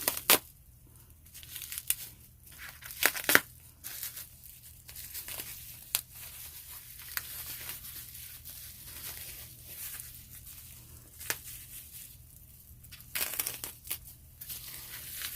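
Packing material being torn open and crumpled by hand while unwrapping a taped-up package: irregular rustling and crinkling with sharp crackles, in a few louder spells.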